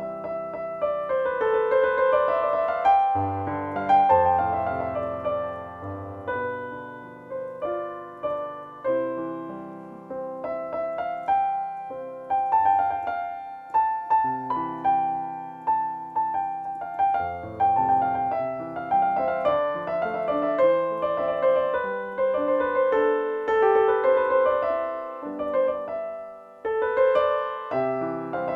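Piano playing a slow melody over bass chords, each note ringing and fading. It is a tentative rendering of an old tune read from hard-to-decipher notation, which the player calls "something like it", not exact.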